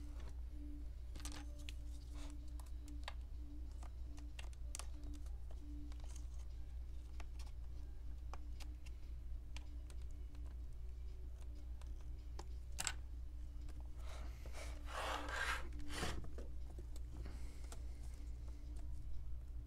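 Handling noise of a laptop's glass touch-screen panel being pried and flexed by gloved hands against its adhesive tape: scattered light clicks and taps, with a longer rustling scrape about fifteen seconds in. A steady low hum runs underneath.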